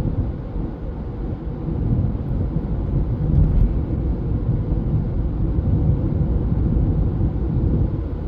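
Steady low rumble of road and engine noise heard from inside the cabin of a moving 2017 Honda CR-V with a 1.5L turbo engine.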